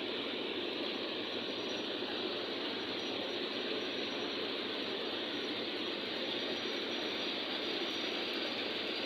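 Steady, even rushing noise that holds level throughout, with no breaks or changes.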